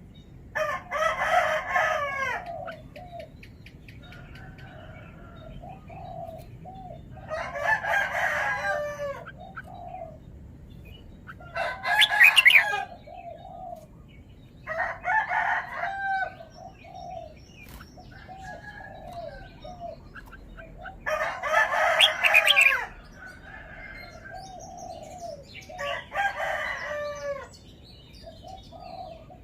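Red-whiskered bulbul singing: loud phrases of quick falling notes, each a second or two long, repeated every four to six seconds, with softer notes in between.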